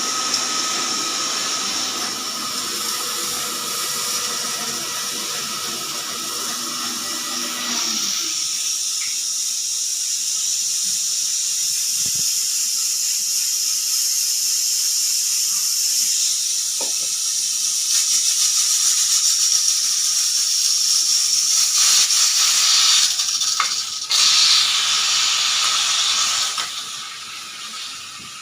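Pressure cooker whistle releasing steam in a long, steady hiss. For about the first eight seconds a pitched whistling note sounds under the hiss. After that only a thinner, higher hiss goes on, growing louder and then tapering off near the end.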